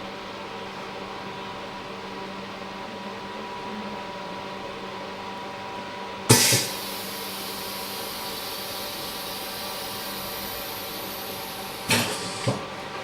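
OCA vacuum laminator running with a steady pump hum. About six seconds in comes a sudden loud burst of hiss that fades over a few seconds, and near the end there are two sharp knocks.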